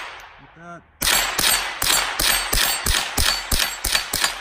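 Marlin Model 60 semi-automatic .22 LR rifle fired in rapid succession. After a brief vocal sound, a fast string of about fifteen shots starts about a second in, at roughly four shots a second.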